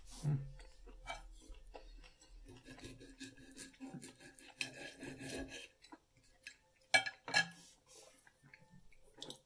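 Cutlery scraping and clicking on a plate as meat is cut, with two sharper clicks about seven seconds in.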